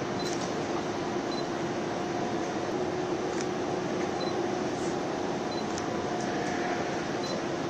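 Steady mechanical whir like a fan, with a constant low hum and a few faint, short high ticks.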